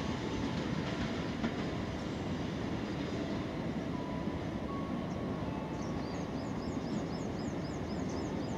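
Ballast train of loaded hopper wagons, hauled by a diesel locomotive, rolling past: a steady rumble of wheels on the rails, with faint whining tones coming and going.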